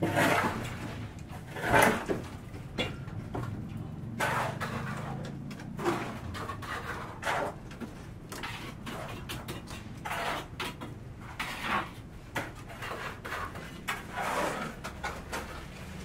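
Irregular knocks and short scrapes of hand work at a concrete column's rebar cage and wooden formwork, spaced a second or two apart.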